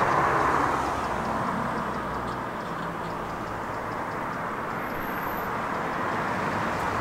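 Steady background rumble and hiss of distant city traffic, easing slightly over the first couple of seconds.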